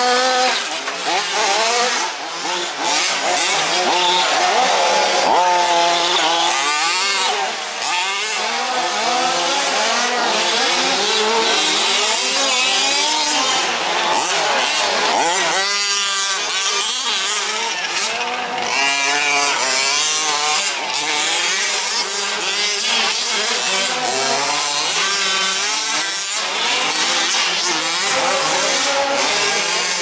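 Several 1/5-scale petrol RC trucks racing, their small two-stroke engines revving hard and easing off through a dirt-track corner. Overlapping engine notes rise and fall, with one especially sharp rising rev about halfway through.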